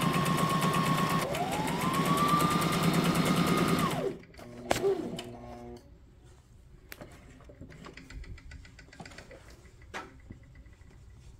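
Brother SM2700 sewing machine sewing at speed: a steady motor whine with a rapid even clatter of the needle. It eases off briefly about a second in, runs up to speed again and stops about four seconds in. After that there are only faint clicks and rustling of the fabric being handled.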